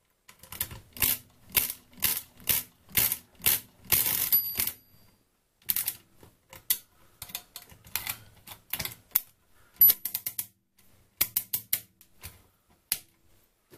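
Feliks-M pinwheel mechanical calculator being cranked: a sharp metallic clack with each turn of the handle, about twice a second for several turns. Later comes a quicker, irregular run of ratcheting clicks as the result register is wound back to zero.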